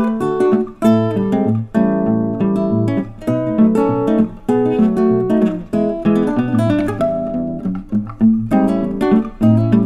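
Background music led by an acoustic guitar, plucked and strummed in a steady run of notes.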